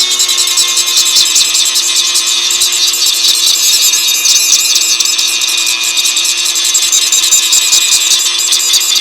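Dremel rotary tool with a small abrasive cutting disc grinding rust off steel: a steady high motor whine that sits a little lower in pitch while the disc bears on the metal, under a continuous gritty grinding hiss.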